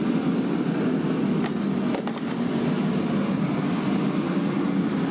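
Steady low rushing background noise, with a few faint clicks between about one and a half and two seconds in.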